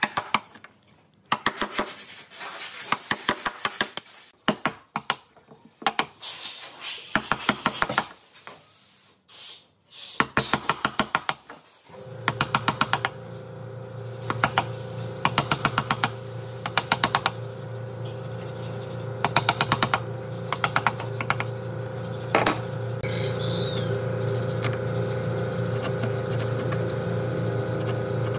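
Bursts of rapid sharp tapping from wood being worked with hand tools. About twelve seconds in, a steady machine hum starts and runs on under further bursts of tapping.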